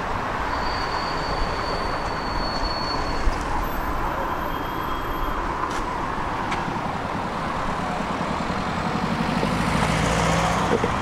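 Steady city street traffic noise, with a vehicle passing close about nine seconds in.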